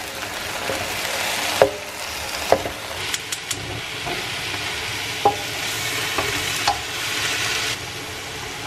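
Bok choy sizzling as it stir-fries in hot oil in a wok, with a few sharp knocks of utensils through it. The sizzle drops lower near the end.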